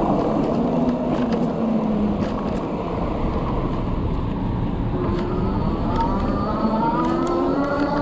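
Kepler e-bike's electric drive motor whining over wind rush. Its pitch falls as the bike slows to about 10 mph, then rises again from about five seconds in as it speeds back up.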